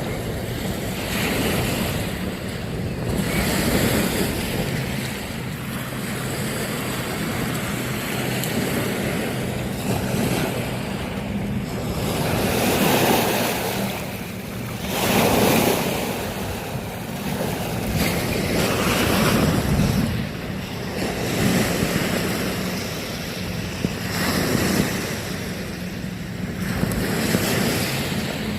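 Small waves breaking and washing on a beach, the surf swelling and falling every few seconds, with wind buffeting the microphone. A faint steady low hum runs underneath.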